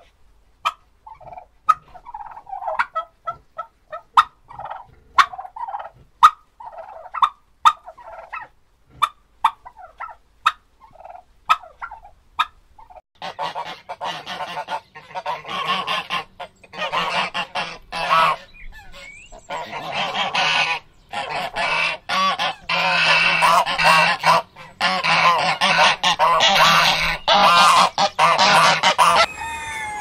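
A flock of domestic turkeys gobbling, with sharp clicking calls every half-second or so. About 13 seconds in this gives way to a flock of domestic geese honking loudly and continuously.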